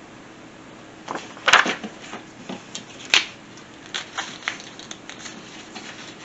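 Irregular sharp clicks and light knocks, a few spaced a second or less apart, with two louder ones about a second and a half in and about three seconds in, over a faint steady hum.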